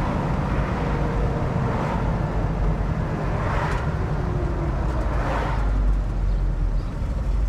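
1969 Ford Mustang Shelby GT500's 428 Cobra Jet V8 rumbling steadily while the car is driven, heard from inside the cabin.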